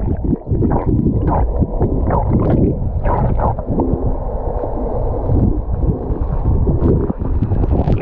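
Muffled underwater sound from a camera held below the sea surface during a swimmer's dive: dull rushing water with repeated gurgling bubble bursts.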